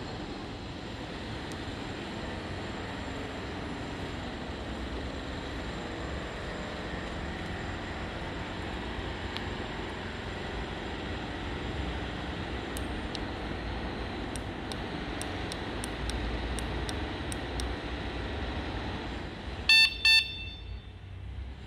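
Electronic horn built into an electric tricycle's LED headlamp sounding two short beeps near the end, over a steady background noise.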